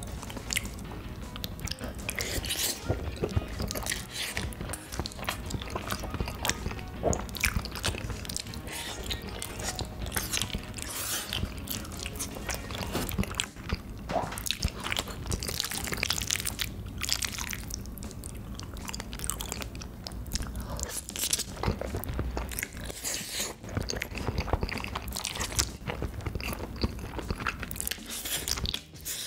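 Person eating into a close microphone: steady chewing with frequent crunchy, wet mouth clicks and smacks, irregular and all through.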